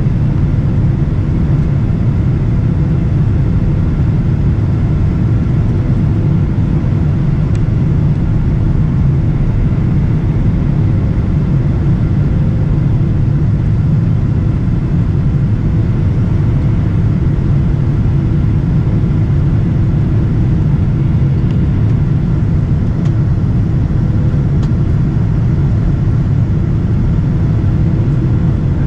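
Steady low rumble inside the cabin of a Boeing 777-200ER, with a few faint steady tones above it.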